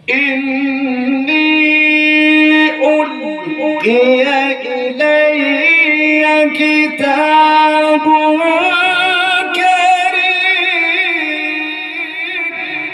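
A male Quran reciter chanting in the drawn-out melodic style, holding one long ornamented phrase with wavering pitch that fades out near the end. The voice is amplified through a microphone and loudspeakers.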